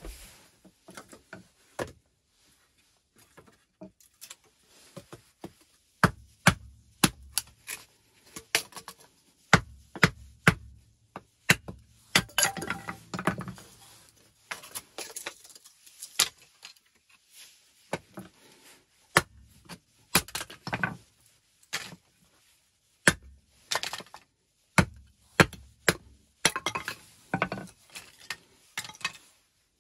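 Dry split kindling sticks clacking and knocking against each other and the stone floor as they are handled and laid out, in irregular sharp knocks with some heavier thuds.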